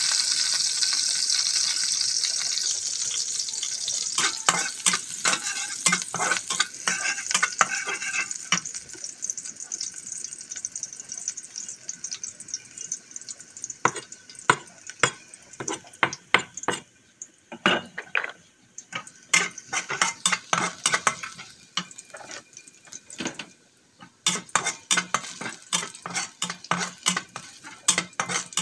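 Chopped garlic sizzling in hot oil in a wok, the sizzle fading away over the first several seconds, while a metal spoon stirs and scrapes it, clicking and tapping against the pan many times.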